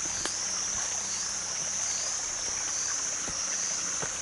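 Insect chorus in the forest: a steady, high-pitched drone that wavers regularly, a little more than once a second, with a few faint ticks.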